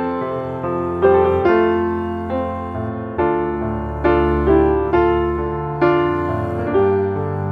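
Background piano music: a slow melody with a note or chord struck about once a second and left to ring out.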